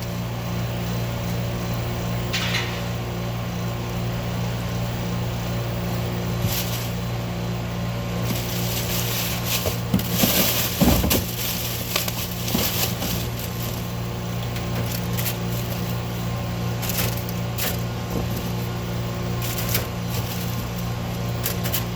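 Steady low hum of commercial kitchen equipment, with scattered knocks, clicks and rustles of trays and food being handled; the handling is busiest around the middle.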